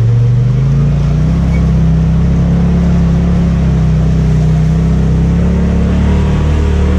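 Polaris RZR Pro XP 4's turbocharged twin-cylinder engine pulling under throttle through a rocky creek, with water splashing and rushing against the machine. The engine pitch rises about a second in, holds steady, and drops back near the end.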